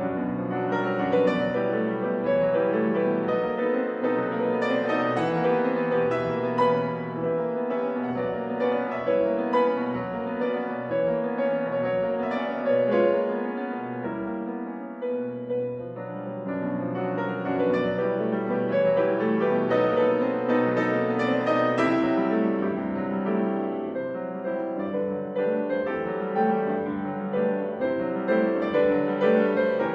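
Background piano music, a continuous run of notes with no pauses.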